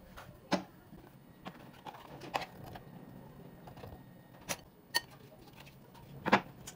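Scattered sharp knocks and clicks from dough being rolled with a rolling pin on a board, then a plastic meat pie cutter being handled and pressed shut. The loudest knock comes near the end.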